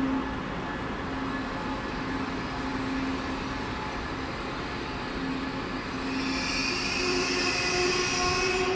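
Electric passenger train moving along a station platform, its rumble growing and a high electric whine of several tones building from about six seconds in.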